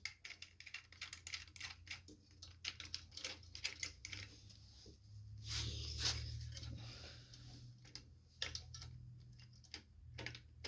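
Scattered light clicks and taps of small parts being handled as a carburetor and its gasket are lined up on the mounting bolts. A low hum rises and fades around the middle.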